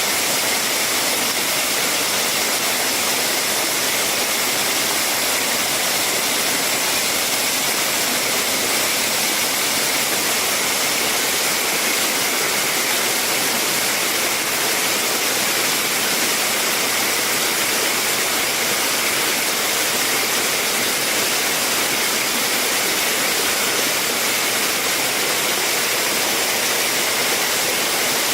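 Steady, unchanging rushing hiss that does not rise or fall and has no distinct events.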